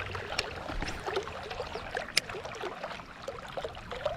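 Shallow river water trickling and gurgling, with a single sharp click a little over two seconds in.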